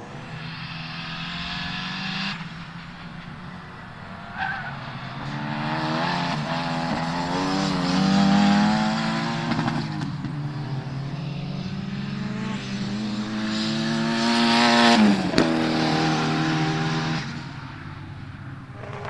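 Rally-style turbocharged cars driving on a race circuit, engines revving up and dropping through the gears as they pass. Loudest about eight seconds in and again around fifteen seconds, where a sharp crack sounds.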